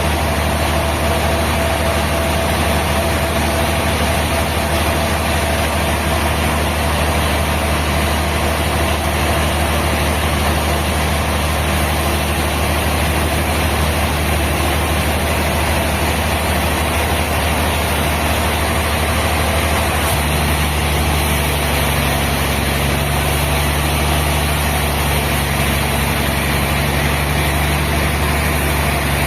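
Sawmill machinery running with a steady low drone, its pitch shifting slightly about twenty seconds in.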